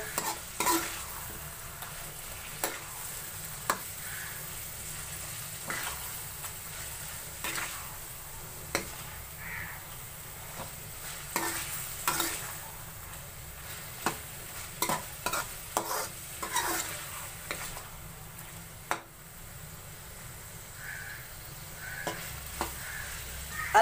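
Metal spoon stirring and scraping through chana dal, spinach and potatoes frying in a metal pan. There is a steady low sizzle, with irregular clicks and scrapes as the spoon strikes the pan.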